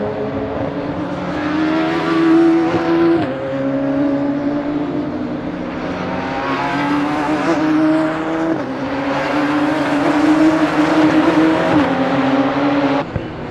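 Radical sports-prototype race cars accelerating out of a corner and passing. Their high-revving engines climb in pitch and drop at each upshift, about three times. The sound changes abruptly near the end.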